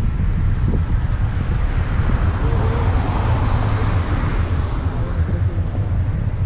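Steady low wind rumble on the microphone of a camera carried by a rider moving on an electric unicycle, with road traffic rushing by. The traffic swells in the middle of the stretch and then fades.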